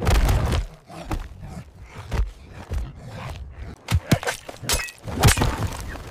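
Struggle with an animal: a run of thuds, scuffs and sharp hits, heaviest in the first half-second, with a few sharp strikes around four and five seconds in.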